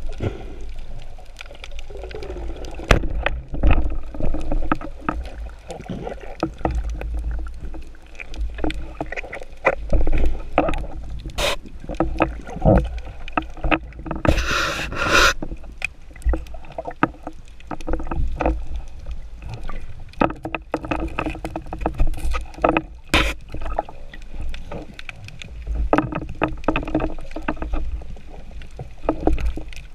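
Underwater sound picked up through an action camera's waterproof housing: a low, steady rumble of moving water with frequent clicks and knocks of speargun and gear being handled, and a short hiss about halfway through.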